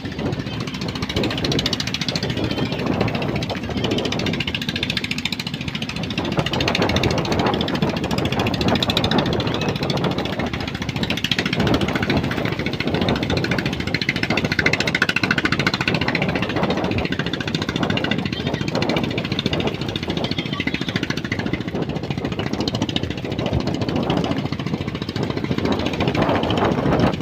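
Strong wind buffeting the microphone: a loud, steady, rough rushing noise that keeps flickering without a break.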